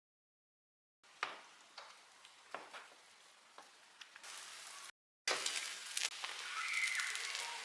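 Food sizzling in a frying pan as it is stirred, with a few sharp clicks of the utensil against the pan. The sound is cut to silence for the first second and again briefly about five seconds in, and is louder after that second gap.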